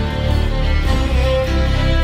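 Background music with long held notes over a steady low bass.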